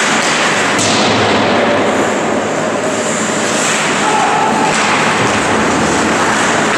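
Loud, steady noise of an ice hockey game in an indoor rink, with one sharp knock about a second in.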